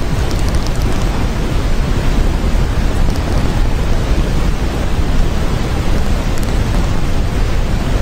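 Steady white noise from a subliminal audio track, a constant rushing hiss heavier in the low end, laid over to mask the quiet affirmations beneath it.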